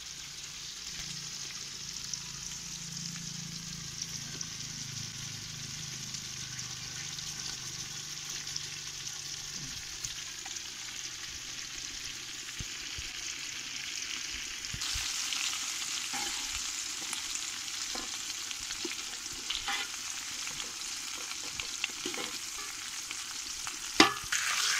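A large marinated fish sizzling steadily as it deep-fries in hot oil in a big aluminium wok. A few clinks come from the metal slotted ladle against the pan, with a louder knock near the end.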